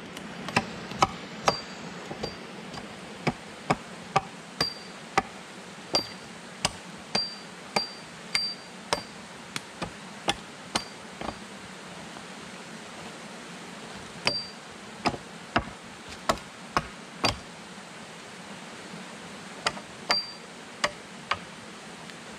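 Axe chopping into a wooden pole: sharp chops at about two a second in runs of a few strikes with pauses between, several with a short high ring.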